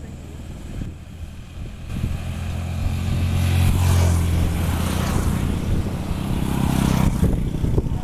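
Motor vehicle engine running close by: a steady low hum that grows louder about two seconds in, with the rush of passing road traffic through the middle.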